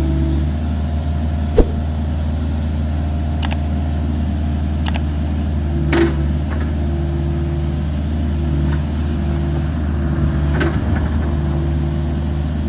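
Kubota RX-505 mini excavator's diesel engine running steadily, with a few sharp clanks and knocks from the machine, the loudest about one and a half seconds in.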